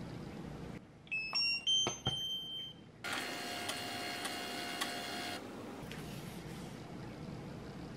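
Handheld mini thermal label printer sounding a short rising jingle of electronic beeps with a few button clicks, then printing for about two seconds with a steady whir as the label strip feeds out.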